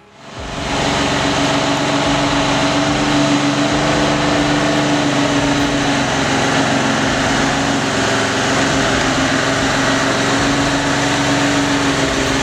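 V12 diesel truck engine with its Jake brake (compression-release engine brake) on, loud and steady at an even pitch even through the mufflers.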